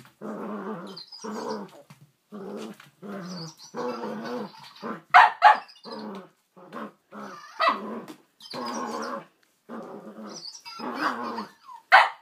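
Cavalier King Charles spaniel play-growling over and over in short runs while tussling with a toy, breaking into a few sharp barks: two close together about five seconds in, one near eight seconds and one at the end.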